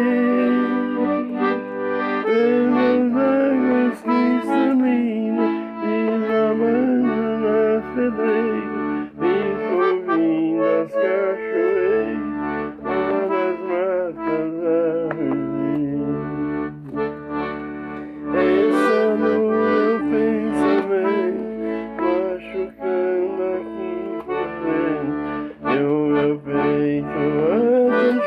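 Instrumental music: held, sustained chords under a wavering melody line, with bass notes changing every second or two.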